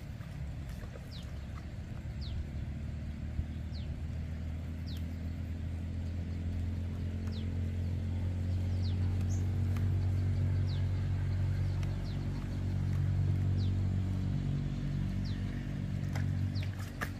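A small engine running steadily, growing louder over the first several seconds, with a short high falling chirp, as from a bird, repeating about once a second over it.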